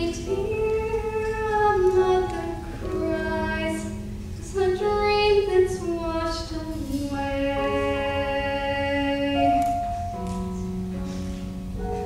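A young female voice sings slow, held notes that slide between pitches in a musical-theatre ballad, over orchestral accompaniment.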